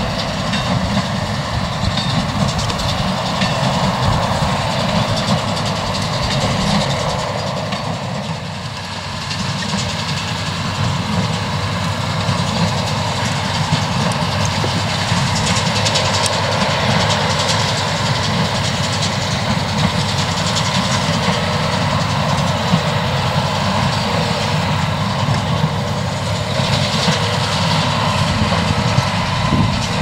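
New Holland T7.210's six-cylinder diesel running steadily under load as it pulls a Massey Ferguson 186 square baler baling straw, with the baler's mechanism clattering along.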